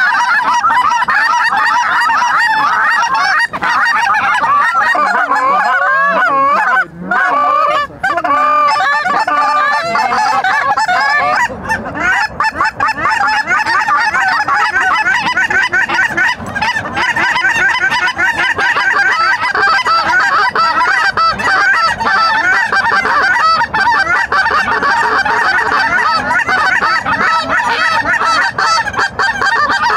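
Many lesser Canada geese honking and clucking over one another in a dense, unbroken chorus, mixed with a hunter blowing a short-reed goose call.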